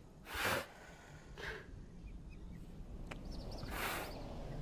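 Gorilla breathing in three short huffs of breath. The first, about half a second in, is the loudest.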